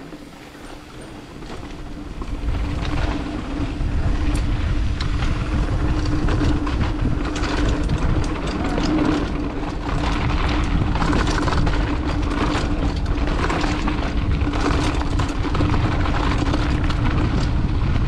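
Mountain bike running fast down a rough, dry dirt trail: the tyres and the bike clatter constantly over braking bumps, with rushing noise and a steady hum. It builds up louder over the first few seconds as speed picks up.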